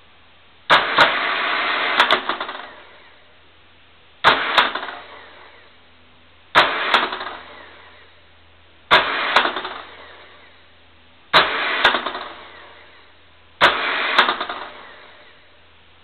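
Better Pak 555s electric wet-tape dispenser running six dispensing cycles, one every two seconds or so: each begins with a sharp click, runs for one to two seconds of motor whirring as the tape feeds, ends with further clicks, then dies away. A low steady hum lies underneath.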